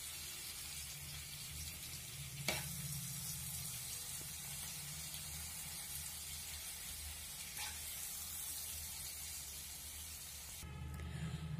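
Faint, steady sizzle of bitter gourd curry cooking in oil in a pan, with a soft knock about two and a half seconds in. The sizzle drops away near the end.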